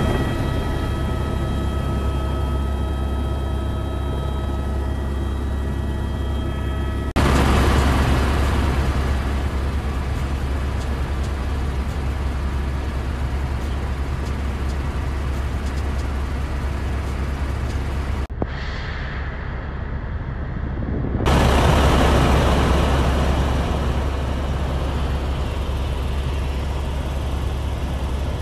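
Helicopter cabin noise in flight: a loud, steady drone of rotor and engine. A thin high whine sits over it for the first few seconds. The level jumps louder about seven seconds in, dips briefly at about eighteen seconds and rises again at about twenty-one seconds.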